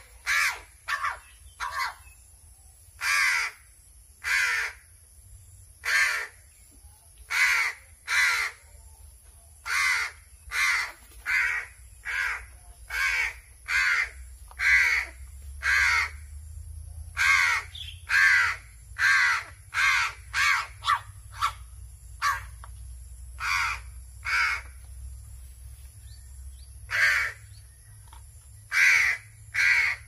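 A hungry pet crow cawing over and over as it begs while being hand-fed, with short caws coming about one or two a second in irregular runs and a brief lull about two-thirds of the way through.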